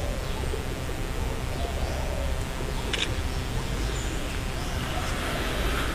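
Outdoor background noise: a steady low rumble with a single short click about three seconds in.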